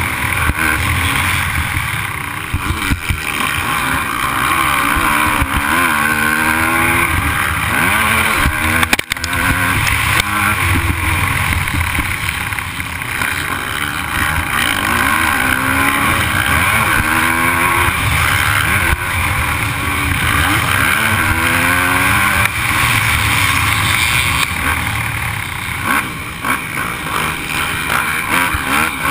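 A 250-class motocross bike's engine being ridden hard round a dirt track, its pitch rising and falling again and again as the rider opens and closes the throttle and shifts through corners and straights. About nine seconds in the engine note briefly drops away.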